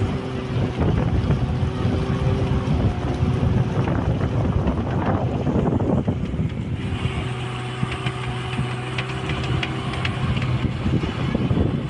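Motorboat engine running steadily under way, with wind buffeting the microphone. The engine note shifts a little about seven seconds in.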